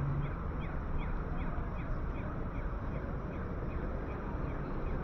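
Pedestrian crossing's audible signal for blind pedestrians chirping in short, evenly spaced falling beeps, about three a second, over steady city traffic noise. The chirping signals that pedestrians may cross.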